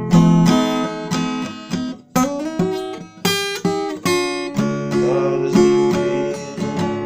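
Acoustic guitar playing strummed chords, with a short run of picked single notes about two seconds in.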